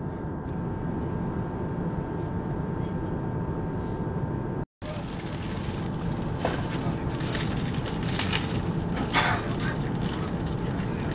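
Steady low rumble of a passenger train carriage's interior, with a faint steady whine in the first few seconds. Scattered clicks and rustling come in the second half.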